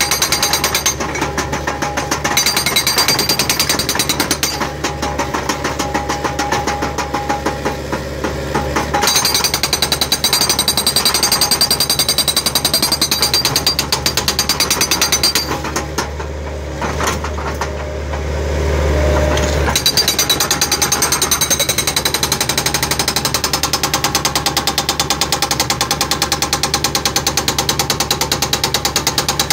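Hydraulic breaker on a skid-steer loader hammering into concrete steps, a rapid, steady run of blows over the loader's running engine. The hammering stops briefly a few times, the longest a few seconds past the middle, while the engine keeps running.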